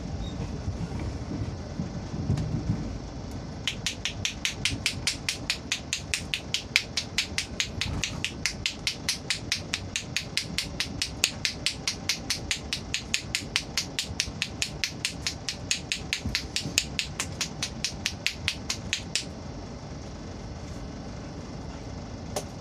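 Hands striking a man's head in quick, even strokes during a head massage, about five sharp claps a second. They start a few seconds in and stop about three seconds before the end. Under them runs the steady low rumble of the moving train coach.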